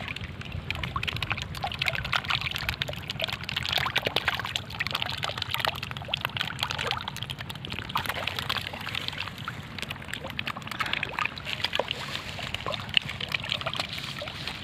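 Small pond fish feeding on floating pellets at the surface: a dense, irregular run of small water pops and splashes as they take the food.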